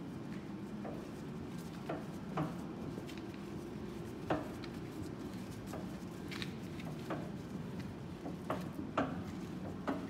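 Steel front door and latch of a Selco hydraulic vertical baler clanking as it is unlatched and swung open: a scattered series of sharp metallic clanks over a steady low hum.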